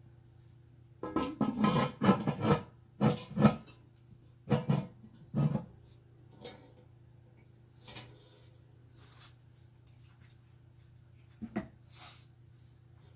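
Cast iron Dutch oven lid clanking and scraping as it is set onto the pot and shifted on the rim, a quick run of loud metal knocks in the first half. A lighter clink near the end as the wire bail handle is lifted.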